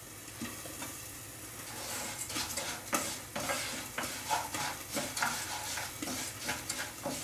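Chicken wings frying in a hot pan, sizzling with frequent crackles and pops that grow busier after about two seconds.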